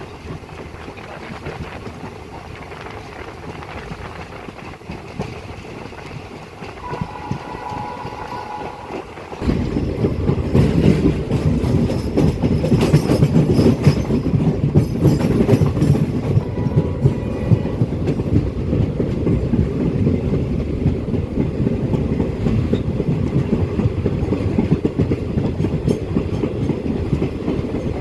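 Kanchankanya Express heard from on board while running: the steady rumble and clickety-clack of the coach wheels on the rails. About nine seconds in the rumble suddenly gets much louder and stays loud. Shortly before that, a faint horn sounds briefly.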